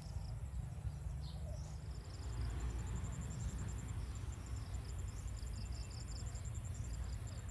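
Insects chirping outdoors in fast, even high-pitched pulse trains, some in short repeated groups, over a steady low rumble.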